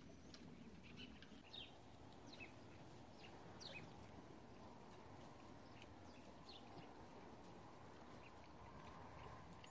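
Near silence with faint, short high-pitched chirps, a dozen or so falling in pitch and scattered throughout, over a low background hum.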